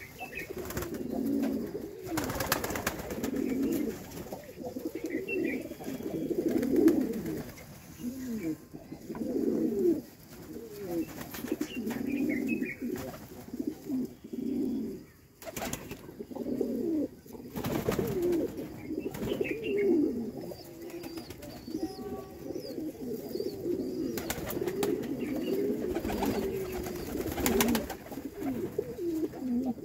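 A flock of fancy pigeons cooing continuously, many low coos overlapping one another, with a few brief sharp noises among them.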